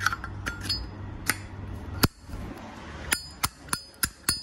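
Zippo lighter's metal lid being flicked open and snapped shut, sharp ringing clinks: a few scattered at first, then a steady run of about three a second from about three seconds in.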